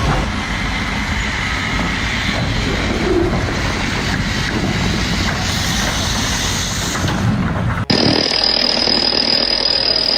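Heavy machinery running, a dense steady rumble. About eight seconds in it cuts off abruptly and a different machine sound begins, with a steady high-pitched whine.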